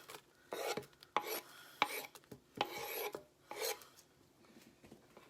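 Sliced apple and diced onion being scraped and dropped into a crock pot: a string of short scraping, rustling sounds with a few light knocks, spread about a second apart.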